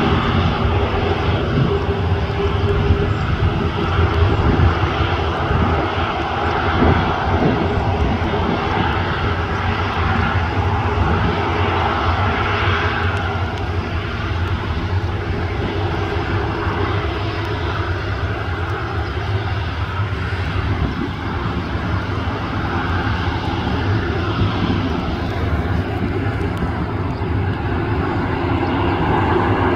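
Jet noise from a Boeing KC-135R Stratotanker's four CFM F108 turbofan engines as it rolls along the runway after landing: a steady rush with a low hum beneath, changing little throughout.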